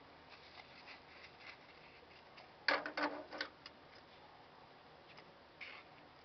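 Fabric rustling and small clicks as a cargo-vest pocket panel and snap hardware are handled at a hand snap press, with a short run of louder sharp clicks and knocks about three seconds in.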